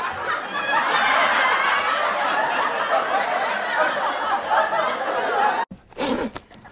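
A group of people laughing together. The laughter cuts off suddenly near the end and is followed by a brief burst of sound.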